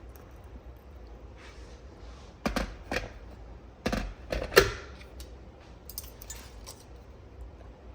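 A handful of short sharp knocks and clinks of small hard objects being handled, the loudest about four and a half seconds in, with a few faint ticks after.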